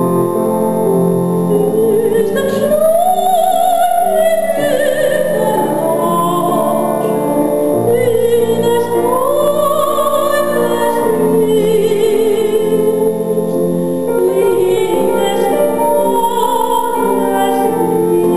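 Female classical singer singing in operatic style with vibrato, accompanied by a grand piano; the piano plays alone at first and the voice enters about two seconds in.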